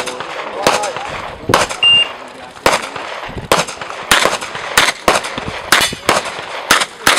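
Handgun shots fired in a practical-shooting course of fire: about a dozen loud, sharp shots at uneven intervals, some as single shots and some as quick pairs.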